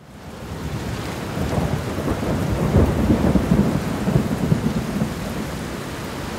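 Thunderstorm: a steady hiss of rain, with thunder rumbling through the middle. It fades in at the start.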